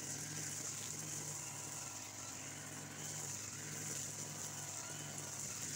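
Petrol brush cutter running with nylon trimmer line, cutting grass: a steady engine note that swells and eases every second or so as the line sweeps through the grass, over a high whirring hiss.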